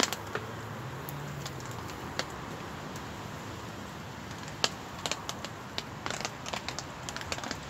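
Wood fire crackling and snapping irregularly over a steady hiss of rain.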